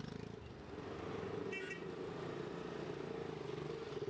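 Motorcycle engines running as the bikes pull away from the stop and ride off, a steady low drone. A short horn toot sounds about a second and a half in.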